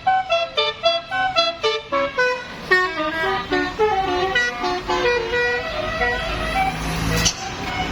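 Tour bus's telolet horn, a multi-note air horn, playing a quick tune of short notes that step up and down. About six seconds in the tune gives way to the bus's engine rumbling louder as it passes.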